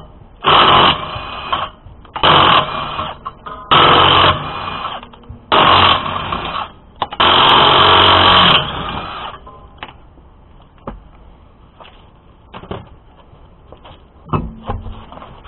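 Cordless impact wrench hammering off the rear wheel's lug nuts in five separate bursts, one per nut. Lighter knocks and clunks follow as the wheel is handled, with a louder knock near the end.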